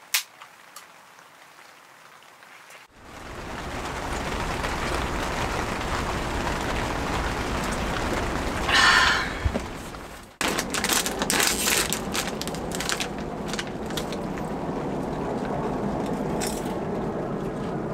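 Steady rain falling on the tent, with a brief louder swell about nine seconds in. At the very start a few sharp clicks come as a beer can's tab is pulled.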